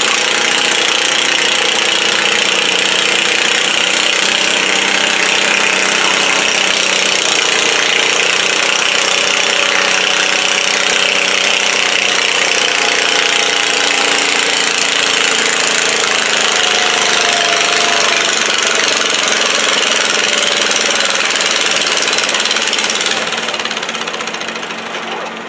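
Modified John Deere garden tractor engine running hard under load while it pulls a weight-transfer sled. The sound is loud and steady, then drops off near the end as the pull finishes.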